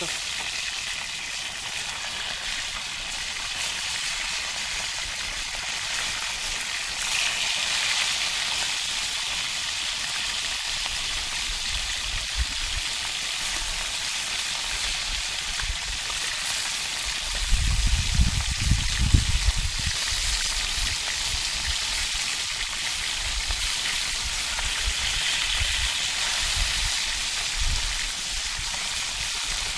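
Fish frying in bubbling oil in a pan over a wood fire: a steady sizzling hiss. A little after the middle, a low rumble lasts about two seconds.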